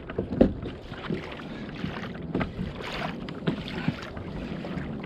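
Water sloshing and splashing around a fishing kayak, with irregular clicks and knocks against the hull.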